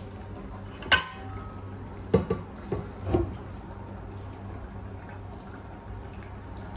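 Metal kitchenware clinking: one sharp clink that rings briefly about a second in, then a few quick knocks and clatters about two to three seconds in, over a steady low hum.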